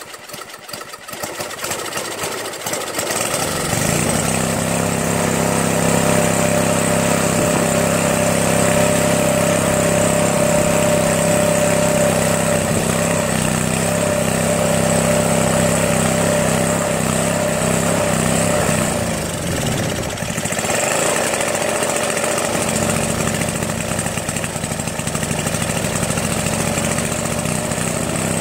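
Tecumseh engine of a Craftsman 522 two-stage snowblower catching after a pull start and settling into a steady run over the first few seconds. About twenty seconds in, the engine note sags briefly and then picks back up while the carburetor's bowl fuel-mixture screw is being adjusted.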